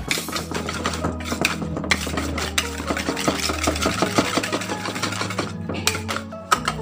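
A wire balloon whisk beating batter in a plastic mixing bowl: rapid, continuous clicking and scraping of the wires against the bowl.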